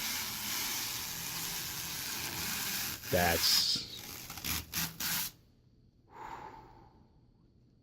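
Protective plastic film being peeled off a PC case panel: a steady crackling hiss for about three seconds, then a few short crinkles and rustles that stop about five seconds in.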